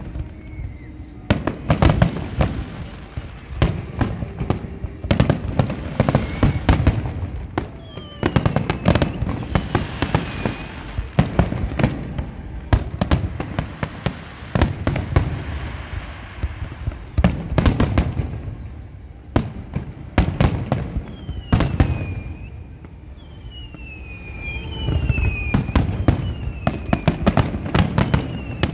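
Fireworks display: aerial shells bursting in rapid, irregular bangs and crackles, easing off briefly a little after two thirds of the way in. Short falling whistles cut through about a third of the way in and again near the end.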